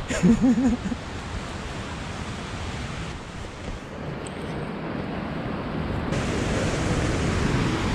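Ocean surf breaking, a steady rushing, mixed with wind on the microphone. It grows louder over the last two seconds.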